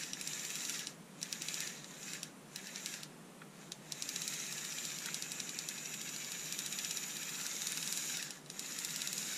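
Panasonic EY503 cordless screwdriver's small electric motor driving its gear train, running with a fine rapid clicking. It drops in level briefly three times. The gears are struggling to turn, and the clicking is taken for a possible broken gear.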